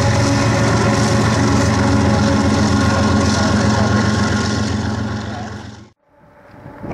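BNSF diesel freight locomotive passing, its engine running with a steady low drone over a broad rush of train noise. The sound fades out about five seconds in and is silent by six.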